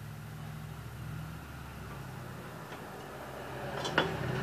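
A low mechanical hum runs steadily throughout. About four seconds in, a single sharp metallic knock sounds as the sterndrive housing is handled.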